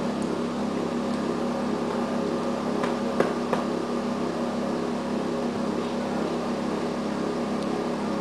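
EN57 electric multiple unit standing with its equipment running, giving a steady mechanical hum, with a few sharp clicks about three seconds in.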